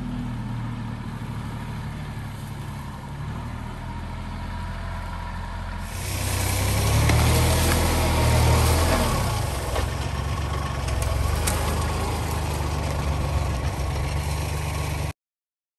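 Kubota compact tractor's diesel engine running, heard at a distance at first, then close by and louder from about six seconds in as it drives through brush with its box blade. The sound cuts off suddenly a little before the end.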